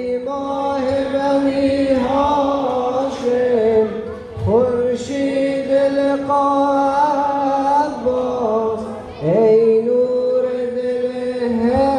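Voices chanting a Persian Muharram lament (noha) for Abbas, on long held, wavering notes. Each new phrase starts with a rising slide in pitch, about four and a half and again about nine seconds in.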